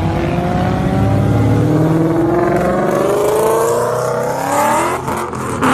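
Car engine accelerating hard, its pitch climbing steadily for about five seconds, then dropping near the end and climbing again.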